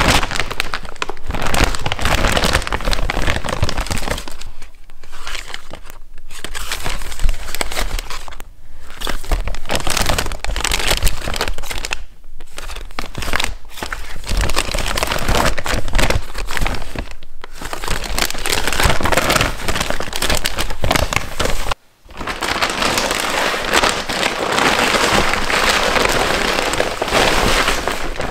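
Hands rummaging through a bag full of plastic and foil face-mask sachets and skincare packets: a loud, continuous crinkling and rustling of the wrappers. There are a few short lulls and a brief break about three-quarters of the way through.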